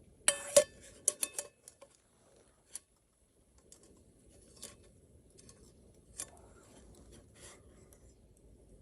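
Small metal camp gear being handled: two loud sharp clinks with a brief ring at the start, a quick run of smaller clicks, then scattered light clicks and taps.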